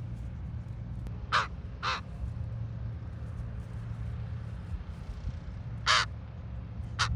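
Common raven calling: two short croaks about half a second apart, then a single longer one a few seconds later, over a steady low rumble.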